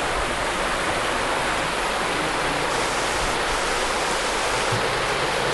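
Shallow river rushing over a stony bed: a steady wash of water noise.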